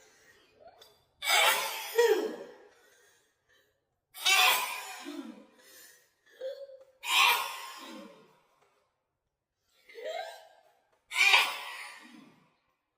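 A woman sneezing over and over in a sneeze attack: about five explosive sneezes a few seconds apart, two of them in quick succession near the start, and a short gasping breath before some of them.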